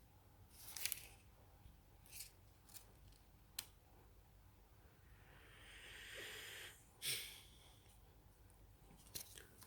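Faint handling noises: several light clicks and taps, with a brief rustle about five seconds in and a sharper tick just after it, as a medicine box, its paper leaflet and the bottle are handled.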